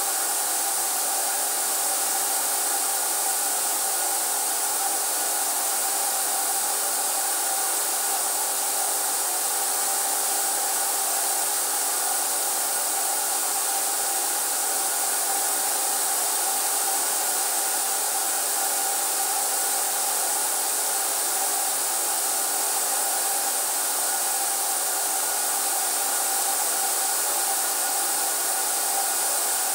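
HVLP paint sprayer running steadily, its turbine whining under a constant hiss of air.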